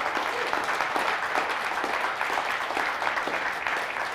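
Audience applauding: dense, steady clapping from many hands, thinning slightly near the end.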